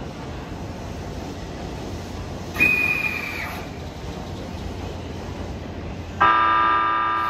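JR E257 series 2500 electric multiple unit sounding its horn: a loud, sudden blast of several steady tones together about six seconds in, still sounding at the end, over a steady low rumble of the train at the platform. About two and a half seconds in, a short high whistle tone sounds for about a second.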